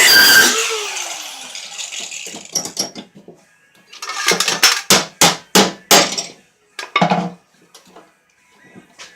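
An angle grinder is switched off and spins down with a falling whine. A run of sharp metallic clanks and knocks follows, about eight in quick succession and then a couple more, as metal parts of the wagon are struck or knocked loose.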